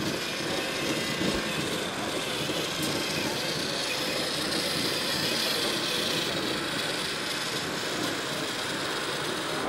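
Radio-controlled scale construction models running: a steady mechanical motor noise, with a higher whine that swells in the middle and fades again.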